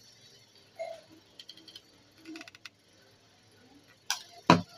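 Small metal gear motors being handled on a cardboard surface: a run of quick light clicks in the first half, then two sharp knocks about four seconds in, the second the louder.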